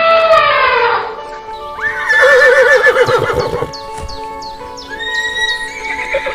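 A horse whinnying, one quavering call of about a second and a half starting about two seconds in, over background music. Before it, a falling pitched sound fades out about a second in.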